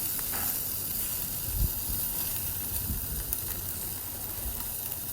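Pork marinated in habanero barbecue sauce sizzling steadily on a grill, with a few faint knocks.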